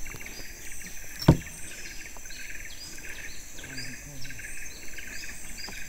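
Outdoor chorus of insects, with steady high-pitched whines, and a short chirping call repeating about twice a second. A single sharp click comes about a second in.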